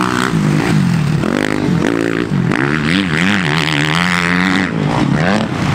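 Motocross dirt bike engines revving on a track, their pitch repeatedly rising and falling as the riders work the throttle and shift, with more than one bike overlapping.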